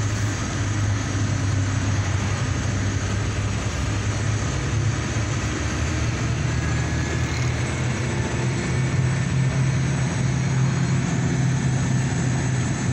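Dump truck's diesel engine running steadily while the truck drives along, heard from inside the cab with a broad rush of road noise.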